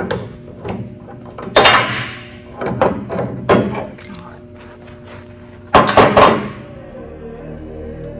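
A series of loud metal clanks and knocks from handling a transfer case's parts, the loudest cluster about six seconds in, over background music. The knocks stop near the end and the music continues alone.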